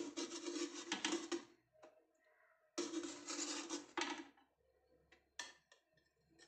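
Metal spatula scraping across the perforated aluminium tray of a momo steamer while lifting steamed dumplings off it, in two scrapes of about a second each, followed by a few light clicks.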